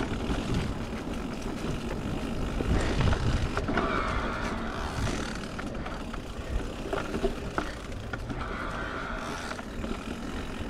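Niner e-RIP 9 electric mountain bike riding a dirt trail: a steady rumble of tyres and rattle from the bike, with a few sharp clicks.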